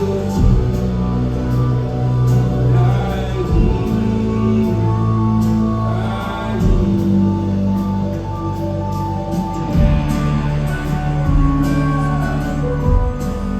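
Live band music: slow passage of sustained chords over long bass notes that change every few seconds, with a voice singing without clear words at times.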